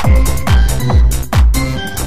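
Electronic dance music with a steady thudding kick drum, a little over two beats a second, under held synth notes.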